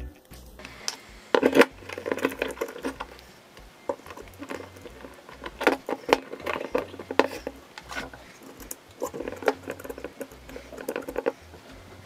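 Handling noise from a smartphone and a magnifier lamp on its clamp stand being adjusted by hand: irregular rubbing, tapping and clicking in three clusters, about a second, six seconds and ten seconds in.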